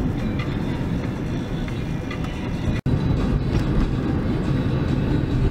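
Car driving, a steady engine and road rumble heard from inside the cabin, cut off for a split second a little under three seconds in before it carries on.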